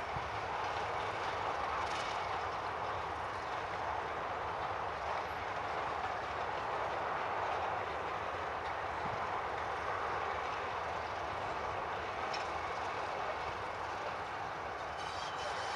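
Brush Type 2 (Class 31) diesel locomotive, with its English Electric 12SVT engine, running as it hauls a passenger train along the line. The sound is steady and barely changes.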